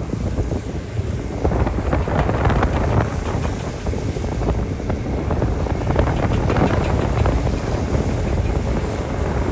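Strong wind buffeting the microphone on a ferry's deck, gusting unevenly, over a low steady rumble from the ship and the rough sea.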